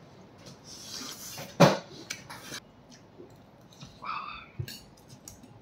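Noodles being slurped and chewed at a table, with forks clicking against plates. There is a longer hissing slurp between about one and two and a half seconds, with a sharp click in the middle of it.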